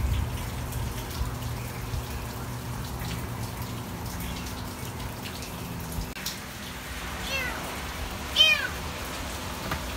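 Tiny kitten mewing: several short, high squeaky mews, each rising then falling in pitch, starting a little past the middle and loudest near the end, over steady rain.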